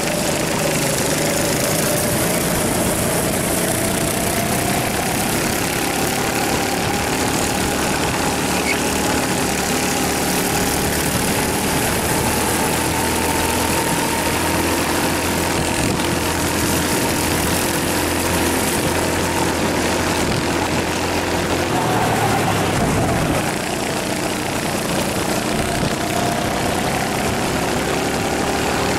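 Rental go-kart engine heard from on board at full throttle, its pitch climbing slowly as the kart accelerates out of a corner and down the straight. About three quarters through, the pitch dips briefly as the driver lifts off, then it climbs again.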